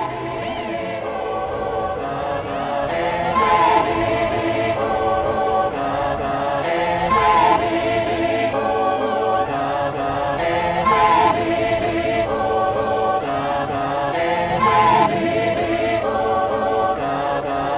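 Background music: a choir-like sung intro with a chord phrase repeating about every four seconds, slowly getting louder.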